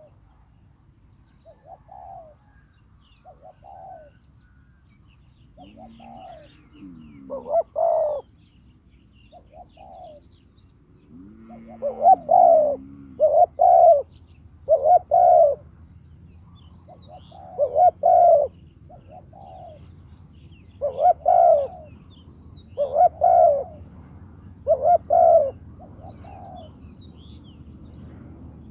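Spotted doves cooing: short coo notes repeated throughout, faint at first, then a nearer bird cooing loudly in groups of two or three notes from about a quarter of the way in, with fainter coos between.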